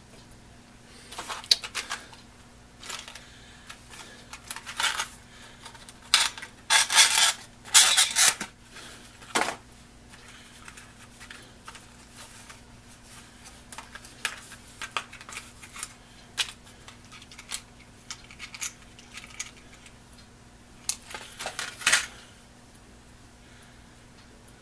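Handling sounds from cleaning an old electric motor's lead wires with a rag: rubbing and rustling with small metallic clinks and rattles, in irregular short bursts, busiest from about six to nine seconds in and again just past twenty seconds. A faint steady low hum lies underneath.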